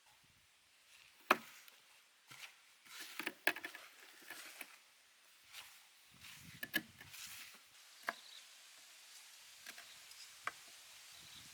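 Scattered light clicks, taps and rustles of kitchen utensils and dry seasoning being handled, with one sharper click about a second in.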